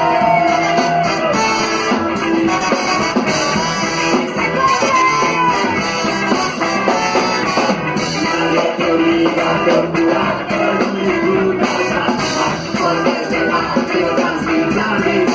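Rock music with electric guitar and drum kit, a steady beat throughout.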